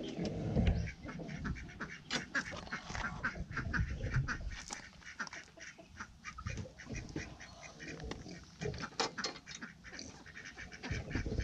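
Ducks quacking: rapid runs of short calls, with a short lull about midway.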